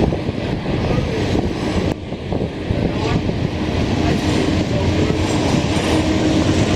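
Norfolk Southern train rolling past: a steady rumble of wheels on rail.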